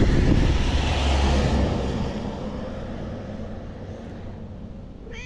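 A passing vehicle's noise, loudest about a second in, then fading away steadily over the next few seconds.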